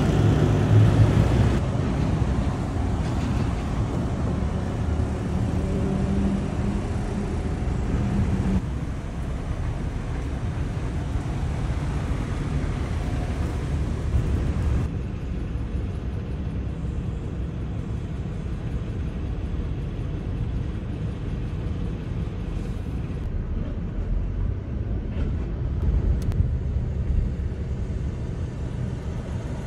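Diesel semi-trucks running at low speed or idling: a steady low engine rumble with traffic noise. The sound changes abruptly a few times where short clips are cut together. In the first part a steady low hum is held.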